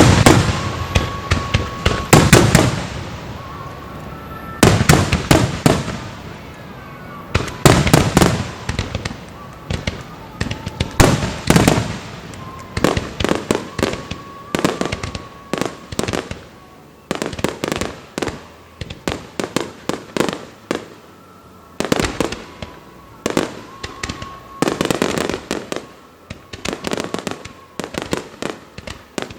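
Starmine fireworks barrage: many aerial shells bursting in quick succession, loud booms in dense clusters with echoes rolling after them.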